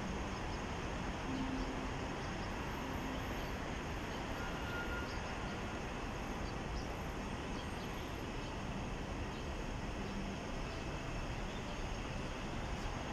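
Steady city background noise: a continuous rumble and hiss of distant traffic with no distinct events.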